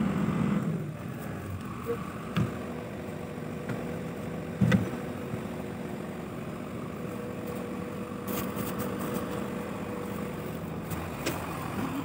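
Hydraulic excavator's diesel engine idling steadily, with two dull knocks a couple of seconds apart, the second louder.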